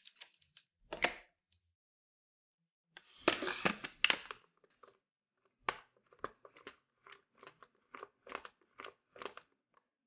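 Plastic handling sounds from a Dyson V15 Detect soft roller cleaner head's end cap being worked by hand. A knock comes about a second in and the loudest part, a scraping rustle, about three to four seconds in. Then a run of short plastic clicks follows, about two a second.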